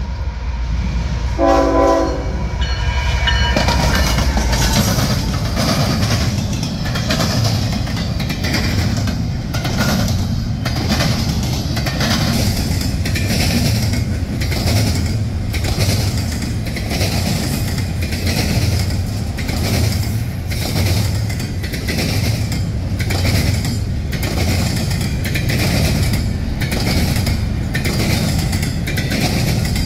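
A diesel freight locomotive's horn sounds one short blast about a second and a half in. Then a long double-stack intermodal freight train rolls past close by, its wheels clacking steadily and evenly over the rails.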